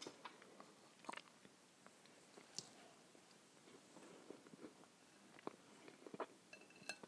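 Quiet chewing of a mouthful of grain bread with mackerel in tomato sauce, with scattered light clicks of a knife and fork on a ceramic plate and a short high squeak of the knife on the plate near the end.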